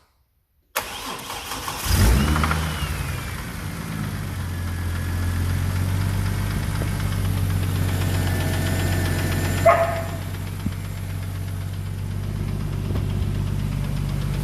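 Ford Falcon engine, an FG bottom end with a BA cylinder head, cranking and catching about two seconds in, then idling with a ticking that the owner finds strongest at the rear of the sump; it may knock once or twice as it starts. A short, sharp sound comes about ten seconds in.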